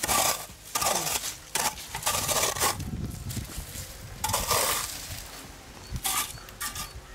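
Steel hoe blade chopping and scraping into dry sandy soil, a stroke roughly every second with a short pause midway.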